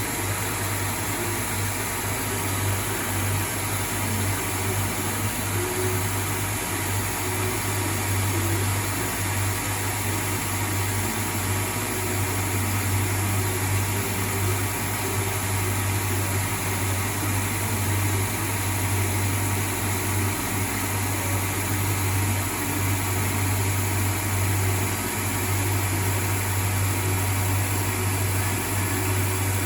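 CNC lathe taking a turning pass on a 4140 steel shaft: a steady motor and spindle hum with an even hiss from the mist coolant spray.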